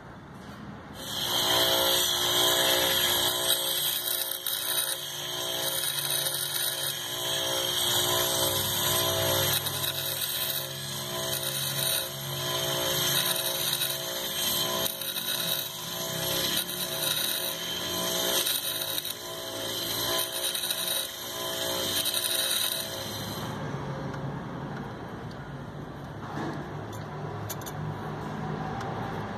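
Bench grinder grinding a small bolt held against its wheel. The sound swells and eases every couple of seconds and stops suddenly about 23 seconds in.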